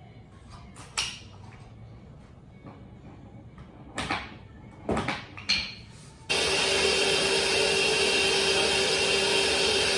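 A few sharp knocks as vinyl plank flooring is fitted and tapped into place. About six seconds in, a loud electric power-tool motor from the miter saw and shop-vacuum setup cuts in suddenly and runs steadily, a constant whine over a hiss.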